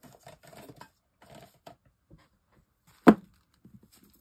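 Paper and card rustling and light handling on a craft mat, then one sharp knock about three seconds in as a clear acrylic block is set down on a freshly glued paper piece to press it flat, followed by a few faint taps.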